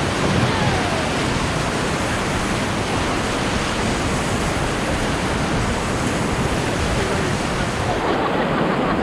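Rushing whitewater of the Ocoee River around a raft, a steady loud roar.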